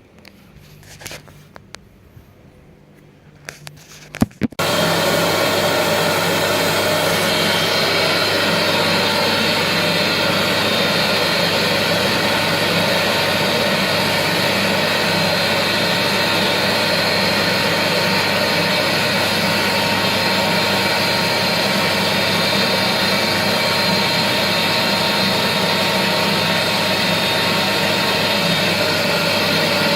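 Britex carpet cleaning machine's motor switched on after a few handling clicks and knocks, starting abruptly about four and a half seconds in and then running loud and steady with a constant hum and whine.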